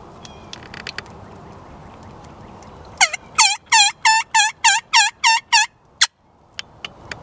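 Turkey yelping: a run of about nine loud, evenly spaced yelps, about three a second, starting about three seconds in. A single sharp click follows.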